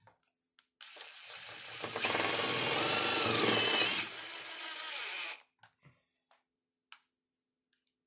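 DeWalt 20V XR cordless impact driver driving a screw into a ceiling support box. It starts about a second in, gets louder for about two seconds in the middle, then eases off and stops after about four and a half seconds.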